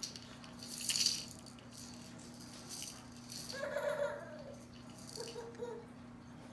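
A rattle shaken in several short bursts, loudest about a second in. A short high-pitched voice-like cry comes about halfway through, and a fainter one follows.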